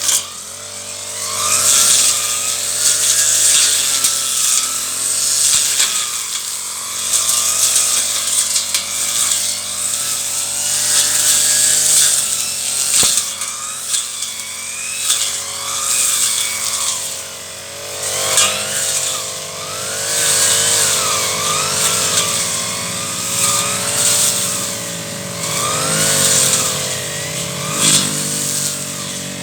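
Petrol brush cutter running hard, its engine pitch rising and falling over and over as the blade cuts through weeds.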